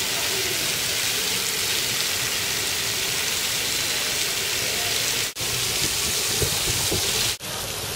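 Ground-level splash fountain jets spraying water onto the paving: a steady hiss like falling rain. It breaks off in two brief dropouts, about five and seven seconds in.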